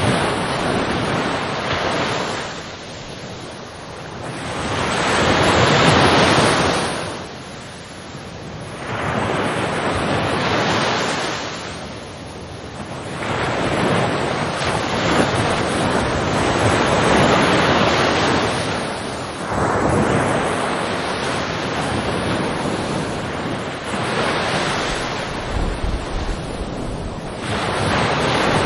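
Ocean waves breaking and washing ashore, the surf swelling and ebbing in surges a few seconds apart.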